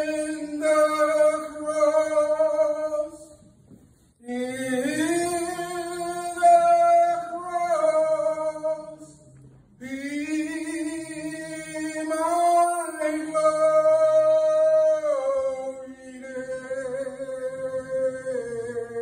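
A solo voice singing unaccompanied in slow, long-held notes, phrase by phrase, with short breaks for breath about four seconds and about nine and a half seconds in, and softer over the last few seconds.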